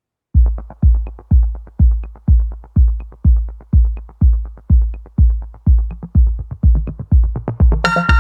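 Electronic dance music: a heavy kick drum beating about twice a second with light ticks above it, and synth chords coming in near the end.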